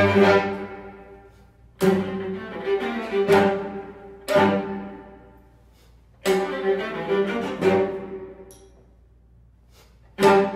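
String quartet of two violins, viola and cello playing contemporary classical music: about seven sharply attacked bowed chords, each dying away, with short hushes between them.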